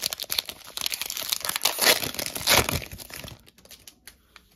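Plastic wrapper of a football trading card pack crinkling and tearing as it is ripped open by hand, loudest about two seconds in and dying away near the end.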